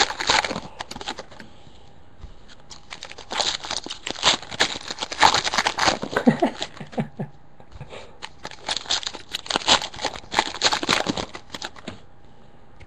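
Trading card packs and cards being handled: foil wrappers crinkling and tearing, with cards rustling, in irregular bursts that die away near the end.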